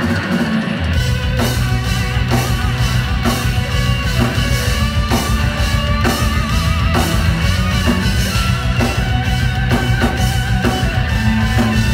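Live rock band playing loud in a club: electric guitar, electric violin, drum kit and heavy bass, with a wavering held melody line over the beat.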